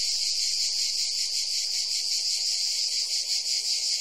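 Steady chorus of insects, a dense high-pitched buzzing trill with a fast pulsing texture.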